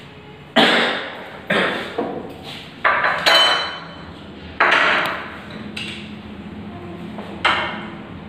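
An irregular series of about eight sharp knocks, each with a short echoing tail. One, a little after three seconds in, carries a brief high ringing tone.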